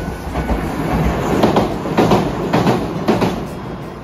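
Hiroden tram passing close by, its wheels rumbling and knocking over rail joints in a string of sharp clacks as it runs over a level crossing and onto a steel girder bridge. The clatter thins out near the end.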